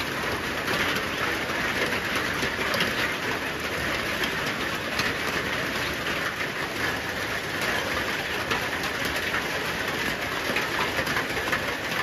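Steady rain falling on the treehouse roof and the forest leaves: a dense hiss made of countless small drop hits.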